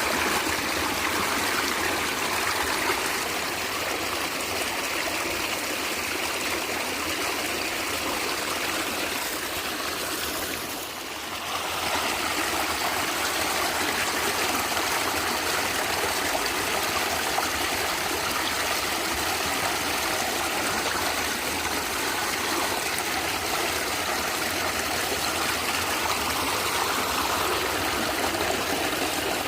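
Natural stream water flowing and gurgling steadily, with a brief dip in level about eleven seconds in.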